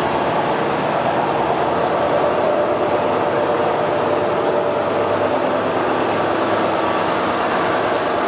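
Siemens Charger diesel-electric locomotive idling at a standstill: a steady engine and fan hum with a few held tones over it.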